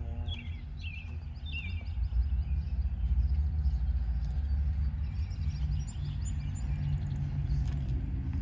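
Birds chirping, with a few short downward chirps in the first two seconds and higher ones later, over a steady low outdoor rumble that grows louder after about two seconds.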